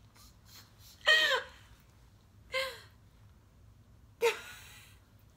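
Three short bursts of laughing and gasping from young women, with pauses between them; the first is the loudest.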